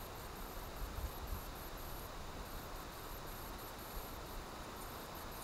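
High-pitched insect chirping in repeated on-off trills, over a faint low rumble.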